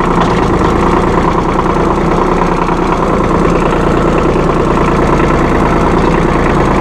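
New Holland Boomer 1925 compact tractor's diesel engine running steadily at raised throttle.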